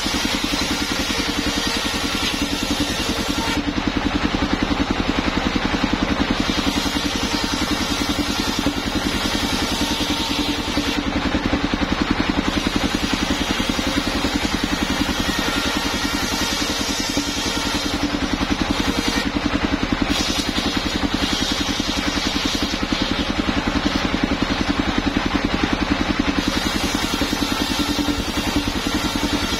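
Engine of a homemade portable circular sawmill running steadily, driving a large circular saw blade as wooden planks are ripped. A high hiss from the cutting comes and goes several times over the engine's steady drone.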